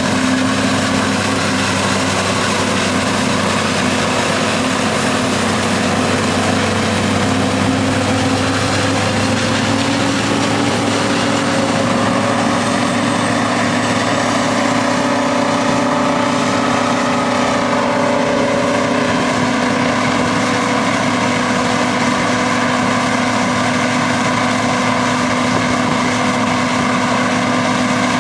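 Diesel farm machinery engines running steadily under load, several engine tones layered together. A few of the tones slowly rise and fall in pitch around the middle.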